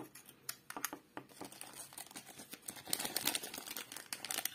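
Clear plastic bag crinkling as hands handle it together with a small plastic magic-trick box, with scattered light plastic clicks. The crackling gets busier about halfway through.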